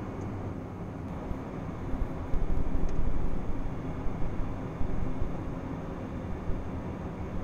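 Cockpit noise of a Gulfstream G-IV on final approach: a steady rush of airflow and twin turbofan engine noise. The low rumble swells and fluctuates for a stretch from about two seconds in until about five seconds in.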